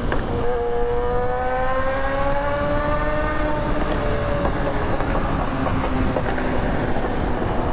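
Sportbike engine running under load as the bike rides into a road tunnel, its note rising slowly over the first few seconds, with wind rushing over the microphone.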